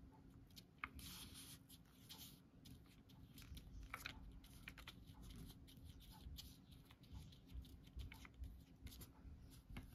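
Very quiet, faint scratchy brushing of a flat paintbrush spreading thick paint across a small piece of paper, in short irregular strokes over a faint steady low hum.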